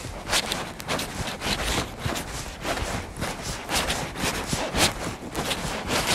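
Footsteps on a dirt forest path strewn with dry fallen leaves, about two steps a second, each with a scuff and crunch of leaf litter.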